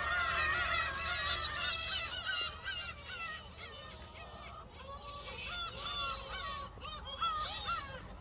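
A flock of gulls calling, with many cries overlapping. The calling is densest in the first two seconds and then thins to scattered calls.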